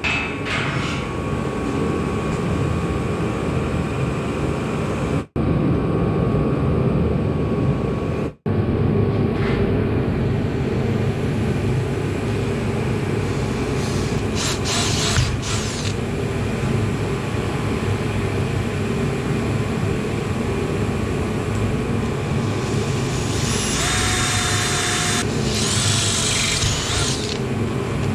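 A power tool running steadily, broken by two short silent gaps about five and eight seconds in, with harsher, higher-pitched stretches later on.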